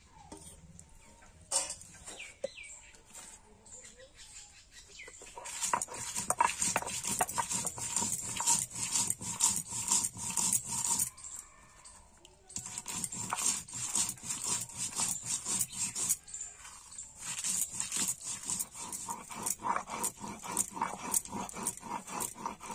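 Dried red chillies and spices being ground on a sil-batta, a flat stone slab with a stone roller: rapid, rhythmic stone-on-stone crushing and scraping in three spells with short pauses, after a few quieter knocks at first.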